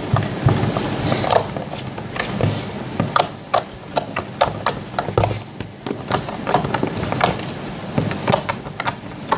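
Borax slime being squeezed and stretched by hand, giving irregular sticky clicks and pops, several a second.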